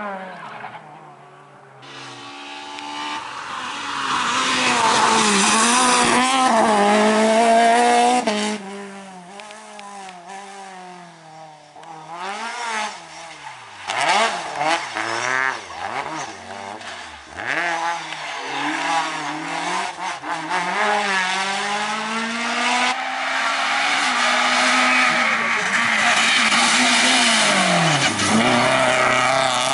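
Rally cars of the French F2000 and Kit-Car classes passing one after another on a stage. Their engines rev hard, rising and falling in pitch through gear changes and throttle lifts.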